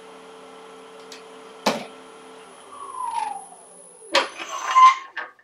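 Small wood lathe running with a steady hum; a sharp click comes near the two-second mark, and the hum then fades with a falling whine. Near the end come two loud metallic clunks as the tool rest is shifted and locked on the lathe bed.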